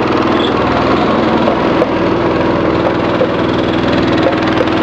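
Small boat engine running steadily under way, a constant drone with a fast, even beat.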